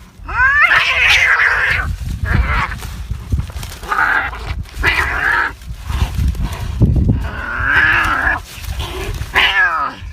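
Domestic cats fighting: harsh screeches and yowls in about six short, loud bursts with brief pauses between them, some calls sliding in pitch.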